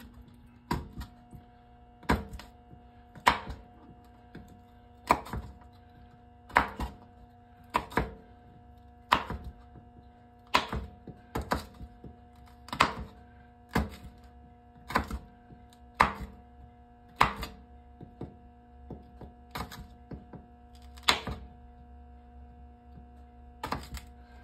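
Knife slicing a red bell pepper into strips on a bamboo cutting board, the blade knocking on the board roughly once a second, over a steady faint hum.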